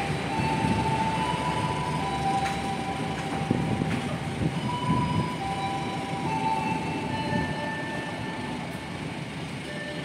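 Kutojaya Selatan passenger train running on the rails: a steady rumble with thin high tones that come and go and shift in pitch, growing a little quieter toward the end.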